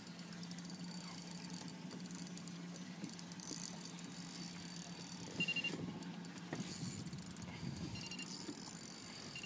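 Boat engine idling as a low steady hum that fades out late on, under the clicking of fishing reels being wound. Short high beeps sound about five and a half seconds in, again around eight seconds, and at the very end.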